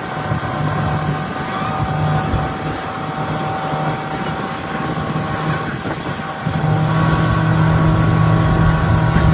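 Motorboat engine running steadily, getting louder about six and a half seconds in.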